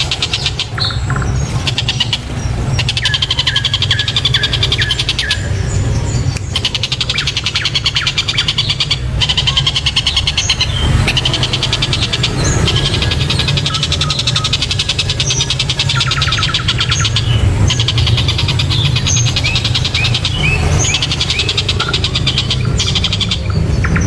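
Oriental dollarbird (tengkek buto) calling in fast, harsh, high chattering runs, broken by series of short downward notes. A steady low hum runs underneath.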